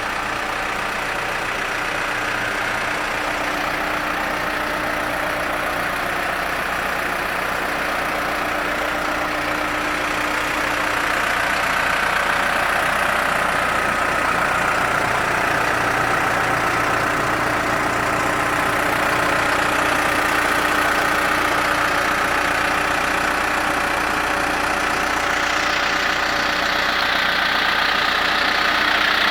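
New Holland LB110 backhoe loader's diesel engine idling steadily, growing a little louder about a third of the way through.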